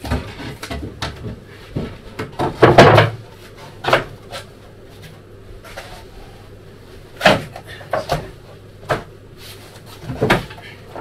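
Timber boards knocking and clattering as a long board is manoeuvred and fitted into place against a wooden wall frame: a string of sharp wooden knocks, the loudest cluster about three seconds in and several more single knocks between seven and ten seconds.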